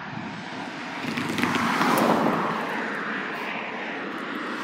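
A vehicle passing by: its noise swells to a peak about two seconds in, then eases off.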